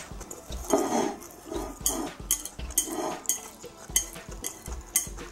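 Wooden chopsticks clicking and scraping against a ceramic plate as the last yakisoba noodles are gathered up: many short, sharp clicks throughout.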